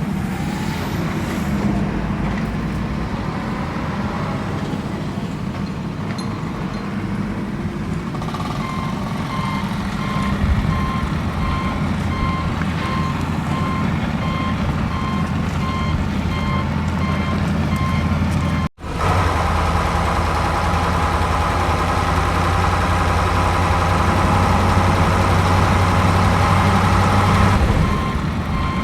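Off-road vehicle engine running steadily, with a repeating electronic warning beep. The beep starts about eight seconds in, runs for about ten seconds, and returns near the end. The sound cuts out completely for a split second about two-thirds of the way through.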